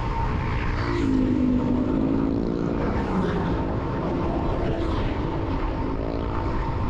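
Wind rushing over the action camera's microphone on a fast road-bike descent. A motor vehicle's engine passes about a second in, its pitch dropping as it goes by.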